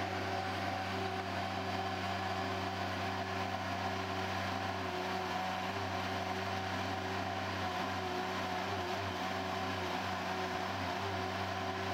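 Engine of a Gehl AL20DX compact articulated loader running at a steady speed.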